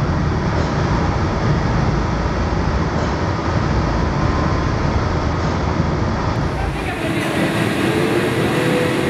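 Steady roar of a glassblowing shop's gas-fired glory hole and its exhaust hoods while a gather is reheated on the blowpipe; the deep rumble thins out about seven seconds in.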